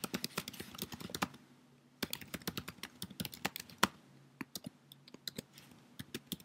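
Typing on a computer keyboard: quick runs of key clicks, with a short break a little over a second in before the typing starts again. A faint steady low hum lies underneath.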